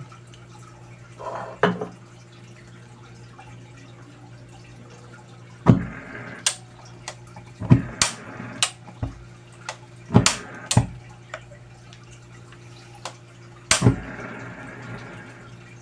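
Metal spoon stirring thick chocolate rice porridge in a nonstick pan: wet, gloopy sounds with about a dozen sharp knocks of the spoon against the pan, most of them in the middle of the stretch. A steady low hum runs underneath.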